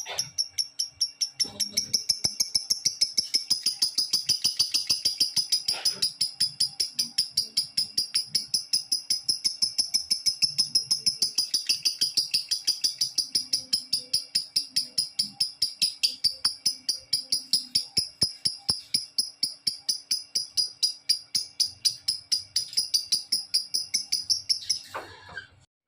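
Lovebird singing a long ngekek trill: a rapid, even string of high chirps, about five a second, kept up without a break and stopping shortly before the end.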